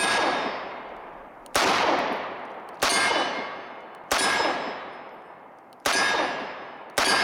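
Six shots fired one by one from a Taurus 856 UL snub-nose .38 Special revolver, about one to one and a half seconds apart, the last near the end. Each shot has a long echo that dies away before the next.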